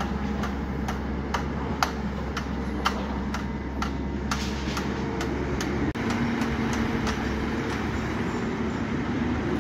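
Caterpillar tracked hydraulic excavator's diesel engine running steadily while the bucket digs into soil and lifts. A string of sharp clicks and knocks sounds through the first half, and about six seconds in the engine note steps up slightly.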